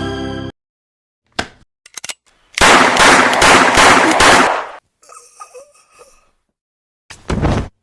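Gunfire sound effects for a gunfight, starting once music cuts off: a few short sharp cracks, then a loud burst of rapid gunfire lasting about two seconds from about two and a half seconds in, and one more short loud shot near the end.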